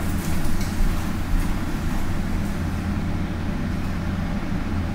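Steady low rumble inside a moving vehicle, with a few faint clicks.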